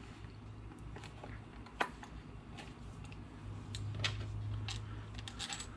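Faint scattered clicks and taps of revolver grips being handled and fitted back onto an S&W 986's frame, over a low steady hum.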